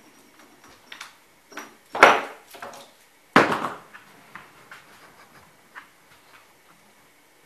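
Small objects on a tabletop knocked and rattled by a peregrine × saker hybrid falcon at play: two loud knocks about two and three and a half seconds in, with lighter clicks and taps before and after.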